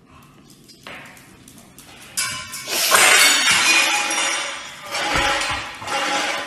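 Glass shattering with a loud crash about two and a half seconds in, the breaking and clattering going on for several seconds.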